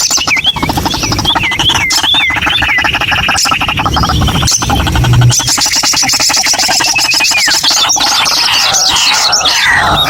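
White-breasted waterhen calling: a loud, rapid pulsing call that runs without a break, with high whistled notes dropping in pitch in the first three seconds and once more later. Near the end it turns into a harsher rising-and-falling chatter.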